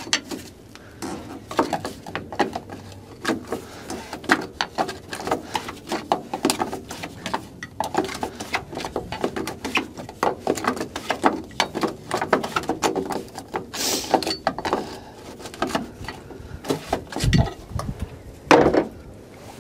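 Irregular clicking and clattering of hands and tools on the fuel filter housing of a semi truck's diesel engine, with a brief louder rush of noise about three-quarters of the way through.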